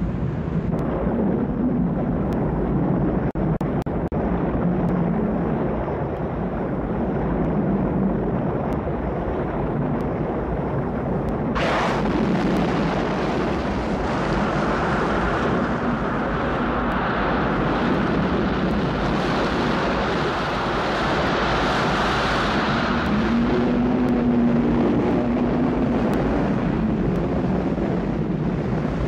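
A steady, deep rumbling noise. About twelve seconds in it suddenly opens into a louder rushing hiss, which fades back to the rumble about ten seconds later.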